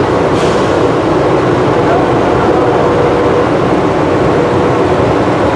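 Rubber-tyred automated people mover running at speed through a tunnel, heard from inside the car: a loud, steady rumble and hiss with a faint hum underneath.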